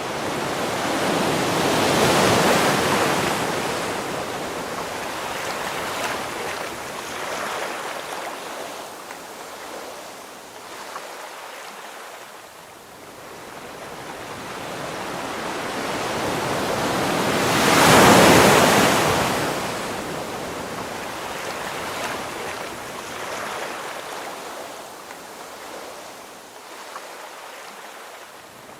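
Ocean waves breaking on a shore. One wave crashes about two seconds in and a louder one about eighteen seconds in, each building up and then washing out into a softer hiss between breaks.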